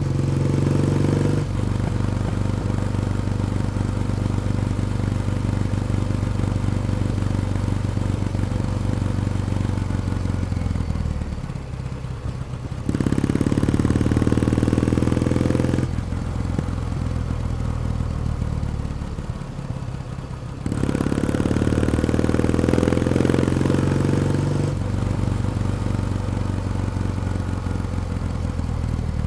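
Kawasaki W1 Special's vertical-twin engine and exhaust under way, at steady cruising. About halfway through, and again about two-thirds of the way, it opens up and rises in pitch for a few seconds before easing back.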